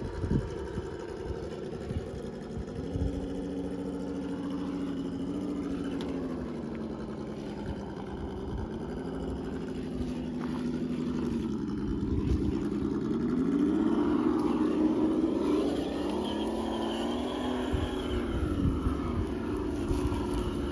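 RC scale crawler's electric motor and geartrain whining at crawling speed. The pitch glides up and down with the throttle and is highest and loudest a little past the middle, with a few clicks from the tires on the rocks.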